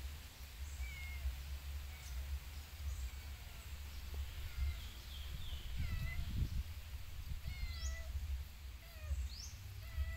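Kitten mewing again and again: many short, high, thin mews with a bending pitch, over a steady low rumble.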